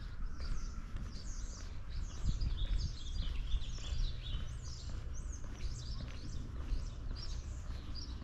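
Small songbirds chirping and twittering in quick runs of short, high chirps, over a steady low rumble of street background.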